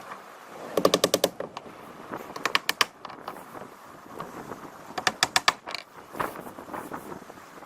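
Nails being driven into the roof deck to fasten roofing underlayment: three quick bursts of about half a dozen sharp strikes each, with a few single strikes between.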